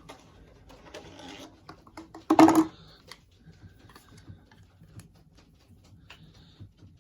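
Metal trim clip and hose removal tools being handled and pulled out of their packaging tray. Scattered light clicks and rustling, with one louder clatter about two and a half seconds in.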